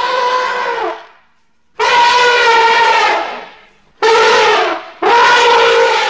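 Woolly mammoth trumpet calls as a film sound effect: four loud trumpeting blasts, each about a second long, with short gaps between them.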